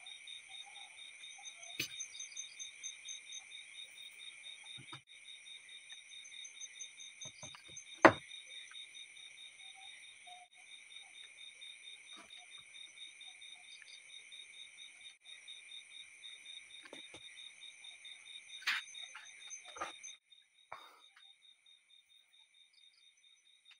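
Crickets chirping steadily in a high, rapidly pulsing trill, with a few sharp knocks of objects being set down on a table, the loudest about eight seconds in. The chirping drops quieter near the end.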